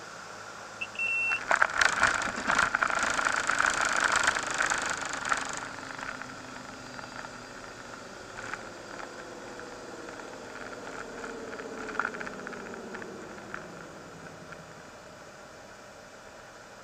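Cockpit sound of a Cirrus light aircraft landing: a short beep, then about four seconds of loud rumbling and rattling as the wheels meet and roll on the runway, followed by a whine that falls slowly in pitch as the plane slows on the rollout, with the engine running at idle underneath.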